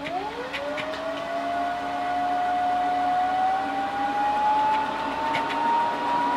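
Polaris PVCR 6001 robot vacuum's suction fan starting up: a whine that jumps up in pitch at once, then keeps climbing slowly, over a steady hum and the rush of air.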